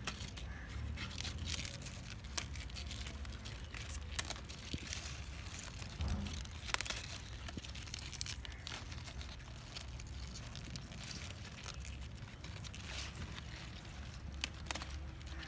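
Spinach leaves being plucked from the plants by hand: scattered snaps and rustles of stems and wet leaves tearing off, over a low steady rumble.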